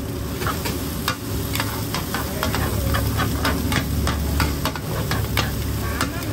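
Two metal spatulas scraping and clanking on a flat black griddle, about three sharp strikes a second, as a crispy oyster and taro omelette is chopped and turned over the sizzle of frying oil.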